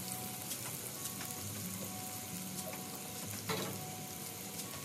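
Tomatoes, cashews and ground spices sizzling in hot oil in a non-stick wok: the butter chicken gravy base frying. A steady fine crackle, with one louder pop about three and a half seconds in.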